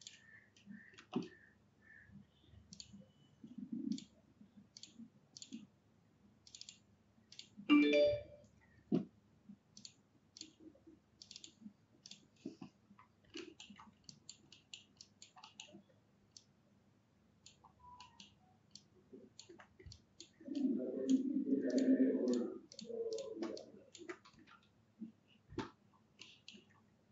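Computer mouse clicking, with many short, sharp clicks at irregular intervals. A brief low muffled sound comes about eight seconds in, and a louder low muffled stretch lasts a few seconds past the twenty-second mark.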